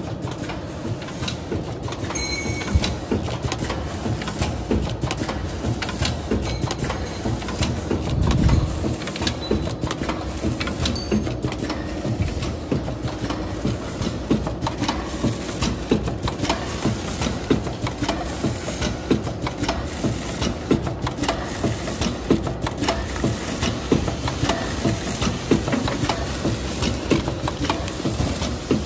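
Vertical form-fill-seal packaging machine running, a steady mechanical clatter of clicks and knocks as it draws film and seals pouches, with a louder low bump about eight seconds in.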